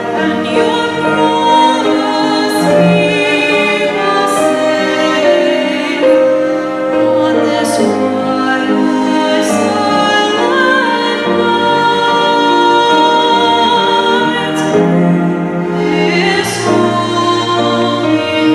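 Music: voices singing a sustained, slow piece with instrumental accompaniment.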